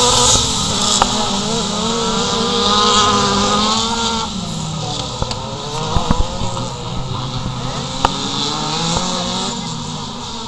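Race car engines revving hard on a dirt track, their pitch climbing and then dropping repeatedly with gear changes, fading slowly as the cars pull away. A few brief thumps break in, the loudest about six seconds in.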